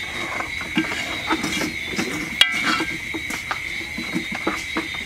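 Metal ladle scraping and clinking against an aluminium pot as stew is ladled out, in a run of short knocks. One sharper ringing clink comes about halfway through.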